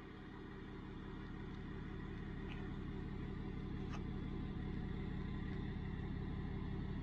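A vehicle engine idling steadily, fading in slowly, with a couple of faint clicks a few seconds in.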